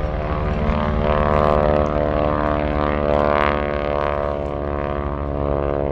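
Boeing Stearman biplane's radial engine and propeller droning steadily in flight, swelling and easing slightly in loudness.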